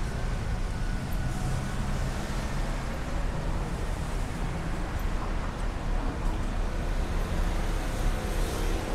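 Steady road traffic noise from cars passing on a busy city street.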